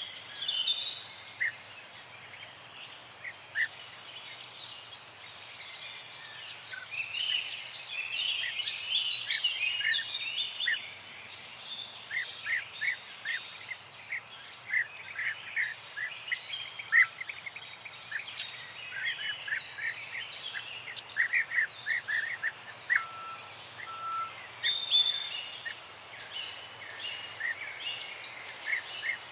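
Several birds chirping and singing together in a morning chorus: quick runs of short chirps overlap, and a faint high thin note recurs about every two seconds, over a steady background hiss.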